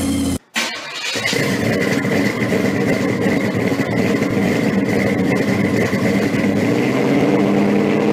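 A car engine running, cut off sharply for a moment about half a second in, then running on steadily and growing slightly louder near the end.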